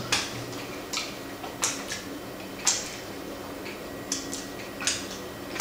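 Mouth sounds of eating: several short wet smacks and clicks from chewing chocolate martabak and licking Nutella off the fingers, spaced irregularly.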